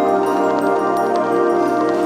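Background music: sustained tones with light, bell-like struck notes.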